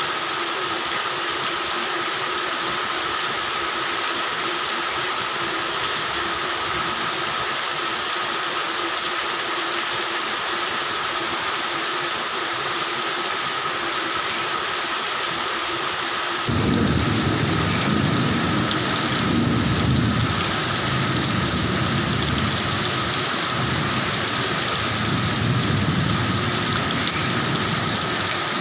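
Steady rain with a chorus of frogs calling in steady bands. About halfway through, a long, low rumble of thunder starts suddenly and carries on to the end, the loudest sound here.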